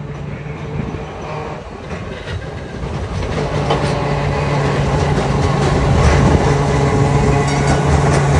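Electric streetcar approaching and rolling past close by, growing louder from about three seconds in: a steady hum with clicking of its steel wheels on the rails.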